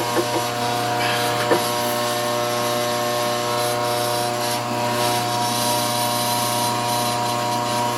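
Steady motor hum of running shop machinery, with light metal scraping as a tap is turned by hand into a part held in a lathe chuck. A single sharp click sounds about a second and a half in.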